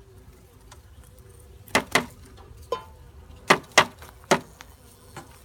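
Honey bees buzzing in a faint steady hum, with about six sharp clicks and knocks from handling between roughly two and four and a half seconds in.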